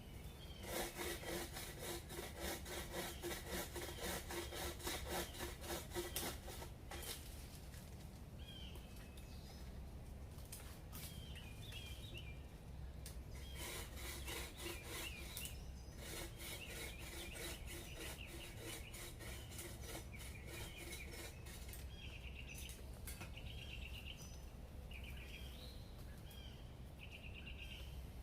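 A saw cutting through a tree branch in fast rhythmic strokes, in two bouts with a pause between them. Birds chirp in the gaps and near the end.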